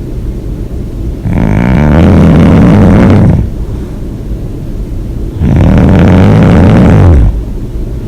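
A person snoring loudly: two long snores of about two seconds each, roughly four seconds apart, with quieter breathing between them.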